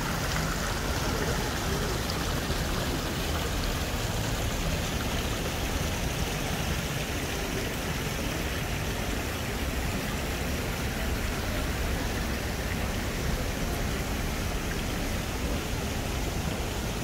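Water flowing steadily in a small Japanese garden waterfall and stream.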